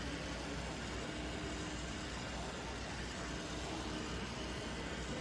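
CNC knife-cutting machine running as it cuts upholstery canvas: a steady mechanical hum and whir over a constant low drone, with a faint steady tone that fades in and out.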